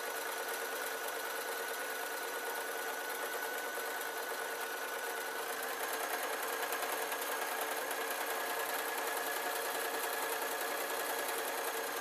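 Sewing machine running continuously while stitching a long skirt hem; its whirr steps up slightly in pitch and loudness about halfway through as it speeds up.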